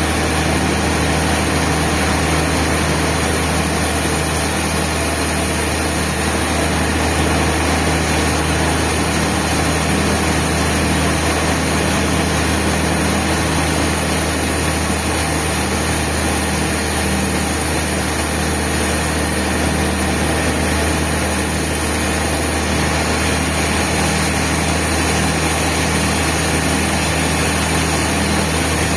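Band sawmill running with a steady, unbroken machine hum and no change in pitch or level.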